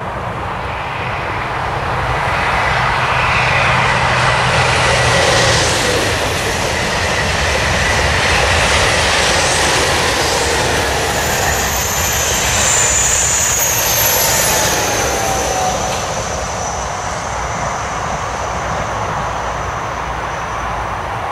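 Two coupled TGV Duplex-type high-speed trainsets (a Duplex and a Dasye) passing on an electrified line: a long rushing rolling noise that swells as the cars go by, with thin high whining tones near the middle, then slowly fades.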